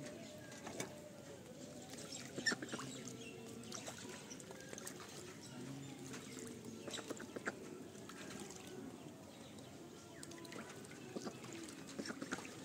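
Light water splashing and trickling in a small plastic paddling pool as a bird moves among floating plastic balls, with scattered small taps and clicks.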